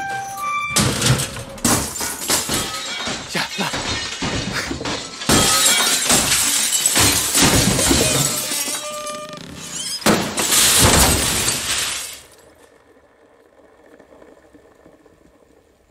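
Panes of window glass and their racks crashing down and shattering, one smash after another for about twelve seconds, then stopping suddenly.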